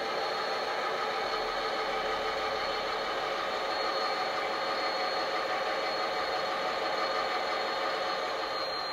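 Model Class 29 diesel locomotive's DCC sound decoder playing the engine sound through the model's speaker: a steady diesel running note with a thin high whine over it, which sinks slightly near the end as the model rolls slowly to a stop.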